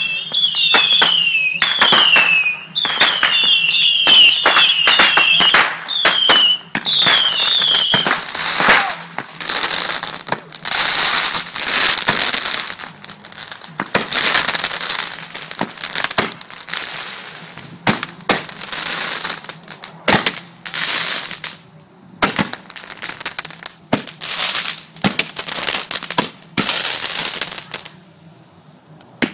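Fireworks going off: a quick string of short falling whistles among sharp cracks for the first several seconds, then dense crackling and popping with bangs, thinning out near the end.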